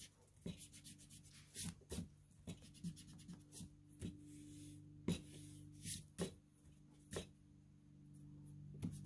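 Block eraser scrubbing pencil lines off printer paper on a clipboard: faint, short, irregular rubbing strokes over a low steady hum.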